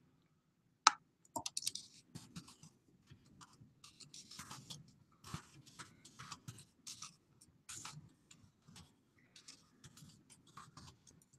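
Faint, irregular clicking and tapping of typing on a computer keyboard, with one sharper click about a second in.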